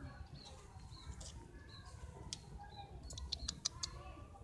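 Small birds chirping, short high calls repeated about twice a second. About three seconds in comes a quick run of five or six sharp clicks.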